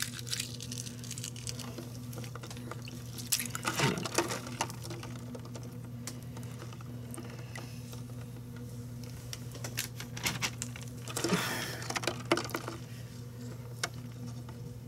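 Hands sloshing in a bowl of ice water among hard-boiled eggs, with short splashes and clicks in two spells, around four seconds in and again around eleven to twelve seconds. A steady low hum runs underneath.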